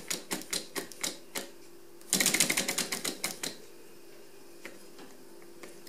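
3D-printed Stirling engine's mechanism clicking about five times a second as it turns, then a louder, quicker clatter for about a second and a half, after which it goes almost still. The engine is struggling to keep running, its owner blaming binding from thermal expansion.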